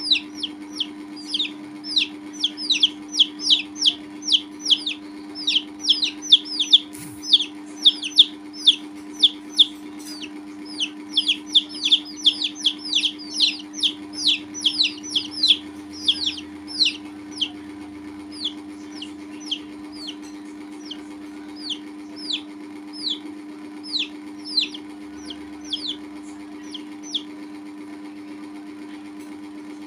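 Baby chicks peeping: short, high calls, each falling in pitch, two or three a second. They thin out in the second half and stop near the end, over a steady low hum.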